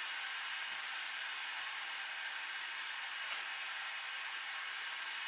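Water heating in a kettle: a steady, even hiss, with a faint click about three seconds in.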